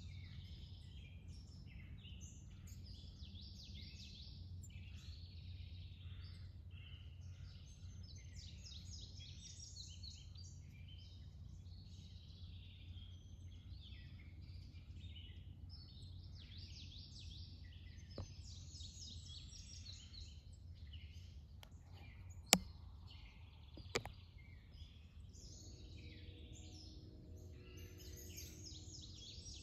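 Many birds singing and chirping over a low, steady outdoor rumble. Two sharp clicks stand out about two-thirds of the way through, a second and a half apart, and a faint steady hum comes in near the end.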